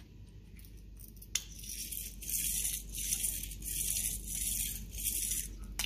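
Nylon-ball transfer unit rolled by hand over a concrete floor: a light, gritty rolling rattle, much quieter than a steel-ball unit. There is a click about a second and a half in.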